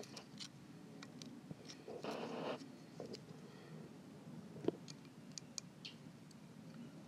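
Knife tip faintly scraping and ticking against a fidget spinner's metal ball bearing, its ball cage melted away, as the balls are pushed around the race to force the bearing to break free. A short scrape comes about two seconds in and a sharper tick near five seconds.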